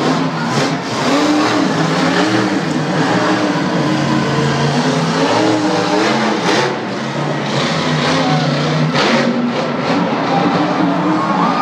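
El Toro Loco monster truck's supercharged V8 engine revving up and down. Two brief bursts of noise come about halfway through and again near the end.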